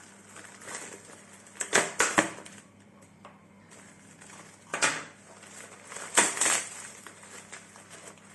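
Packaging being cut and pulled open by hand: a few short rustling, scraping bursts with quiet gaps between them.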